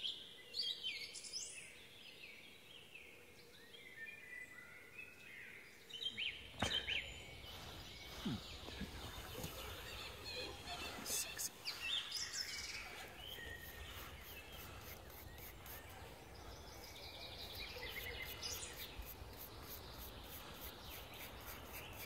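Small birds chirping. From about six seconds in, a stiff plastic brush scrubs soil off a freshly dug metal-detecting find, in runs of quick scratchy strokes with some handling knocks, while birds keep calling.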